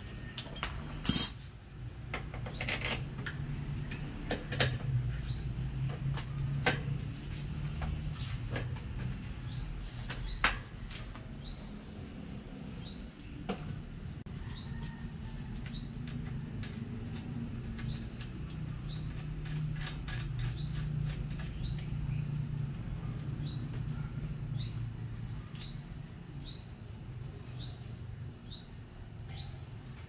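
A bird repeating a short, high, rising chirp over and over, about once or twice a second, over a steady low hum. Now and then a hand tool clinks on metal.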